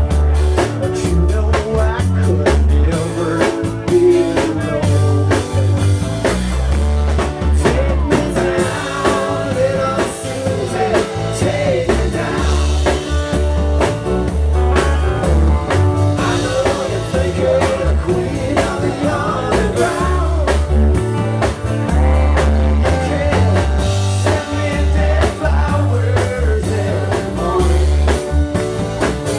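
A live rock band playing loudly: electric guitar, bass guitar and drum kit, with a heavy bass line and a steady drum beat.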